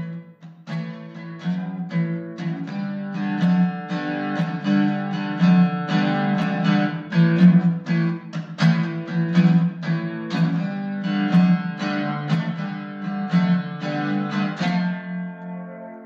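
Guitar music: quickly picked notes, several a second, closing on a final chord that rings out and fades.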